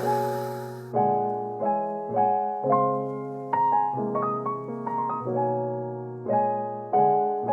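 Background piano music: chords struck about once a second, each ringing and fading.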